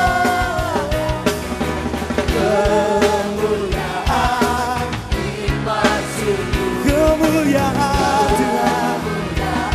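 Live worship music: voices singing a melody over a band with a drum kit keeping a steady beat.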